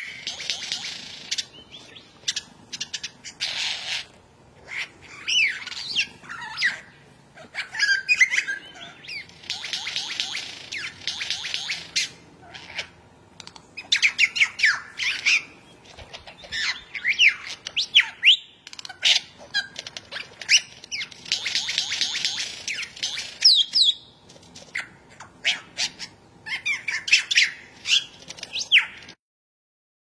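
Male superb lyrebird singing its display song: runs of rapid rattling clicks alternate with quick sweeping whistled notes. The song stops abruptly near the end.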